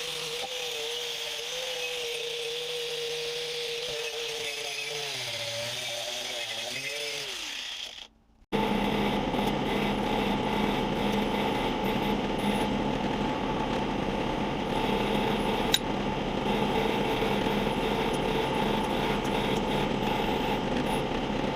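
Dayton bench grinder running steadily. About eight seconds in the sound breaks off abruptly, then the grinder runs again, louder and noisier.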